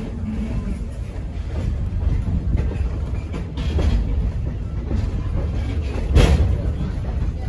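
Heritage passenger coach rolling along the track, heard from inside: a steady low rumble of wheels on rail, with a couple of sharper knocks, the louder one about six seconds in.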